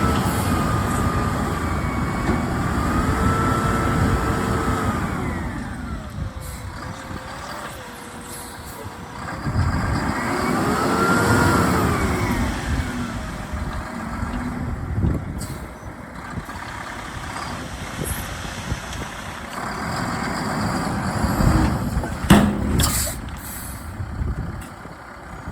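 Tri-axle dump truck's diesel engine revving up and easing off twice while the truck dumps its load of excavation spoils. A few sharp knocks come near the end.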